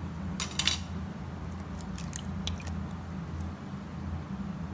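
A raw egg being cracked: a quick cluster of sharp shell cracks about half a second in, followed by a few faint small clicks. A steady low hum runs underneath.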